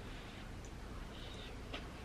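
Faint chewing of a mouthful of curry chicken and rice, soft and close, with a light click near the end.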